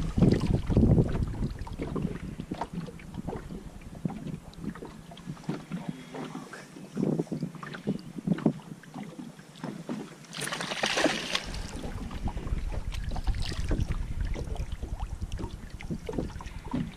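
Irregular knocks and bumps of handling in a small fishing boat on the water, over low wind rumble on the microphone, with a brief rushing burst about eleven seconds in.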